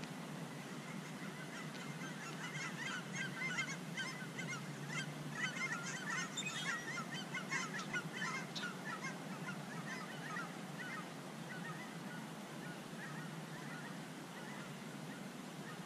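A flock of geese honking, with many short overlapping calls that build up, then thin out and fade about two-thirds of the way through, over a steady low background hum.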